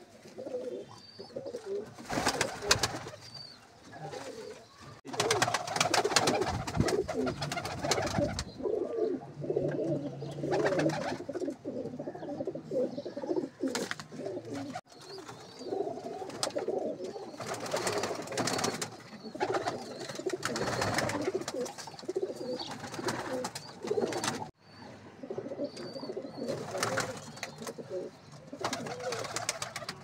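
Domestic pigeons cooing continuously in a loft, a low warbling murmur. Several loud bursts of rustling noise, a second or more each, break in every few seconds.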